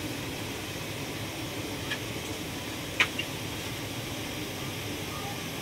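Steady rush of a Boeing 777 airliner cabin's air and background noise, with a sharp click about three seconds in and a fainter one just before, from a small plastic tube of hand-sanitizer gel being opened.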